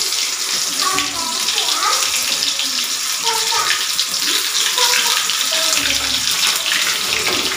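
Batter-coated eggplant slices deep-frying in hot oil in a wok: a steady, crackling sizzle.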